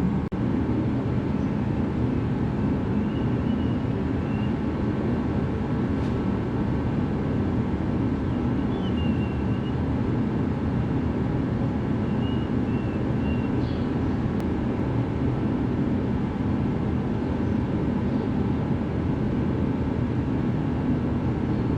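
Shop heater running, a steady, unbroken noise with a low hum.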